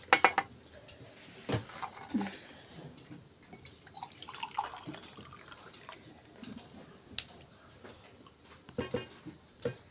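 Eating at a steel plate: a quick run of metal clinks from a fork or spoon against the plate at the start, then scattered small chewing and slurping sounds from noodles. Near the end come a few gulps as a drink is taken from a steel tumbler.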